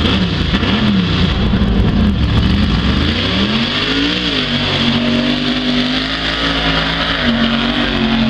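A race-prepared pickup truck engine revs up and down several times, then climbs to high revs and holds them steadily as the truck accelerates away across the dirt.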